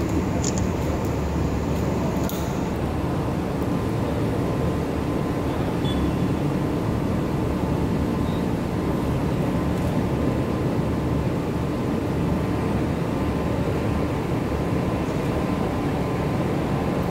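Steady low drone of pump-station machinery running inside the pump house, with a faint steady hum tone over it.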